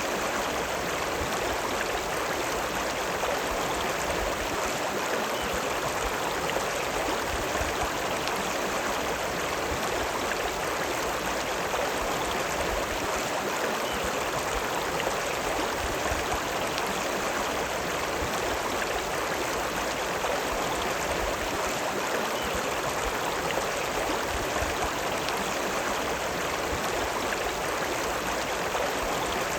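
River water running: a steady, even rush of flowing water with no breaks.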